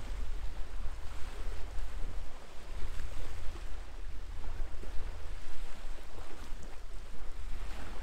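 Wind buffeting the microphone: a gusty low rumble over a steady hiss.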